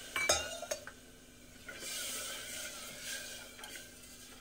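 A few sharp metal clinks in the first second, then a ladle stirring the watery masala and macaroni in an aluminium pressure cooker, with light scraping against the pot.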